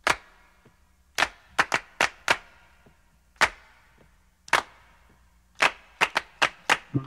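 A series of about thirteen sharp percussive hits, each with a short ring, spaced irregularly and coming closer together near the end: the percussion opening of a music track, just before the full beat comes in.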